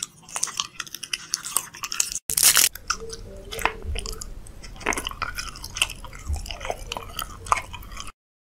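A person biting and chewing food, with irregular crisp crunches and wet mouth sounds, cut off abruptly near the end.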